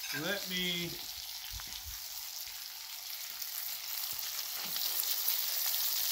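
Sauced pork butt steaks frying on a hot Blackstone flat-top griddle: a steady sizzling hiss that grows louder about four seconds in. A few light clicks come from metal tongs and a fork working the meat on the steel.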